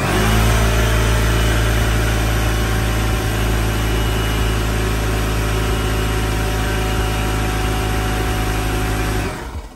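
Electric shop air compressor starting up and running steadily with a heavy motor hum, powered from a portable power station at a load of close to 1000 watts. It stops about nine seconds in.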